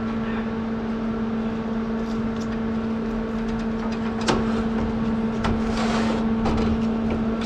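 A steady machine hum with a low and a higher held pitch, over which a foil-wrapped stainless steel exhaust merge collector is handled: a few light metal knocks from about four seconds in and a brief rustle of tin foil around six seconds.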